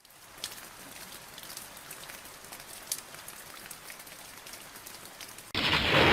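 Rain falling steadily, with scattered drops pattering. About five and a half seconds in, a sudden much louder rush of noise cuts in, sweeping down in pitch.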